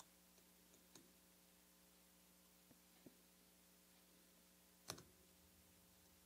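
A few faint, sharp metallic clicks of a small screwdriver working the tiny screw that holds the battery retainer in a quartz watch movement, the loudest about five seconds in, over a faint steady hum.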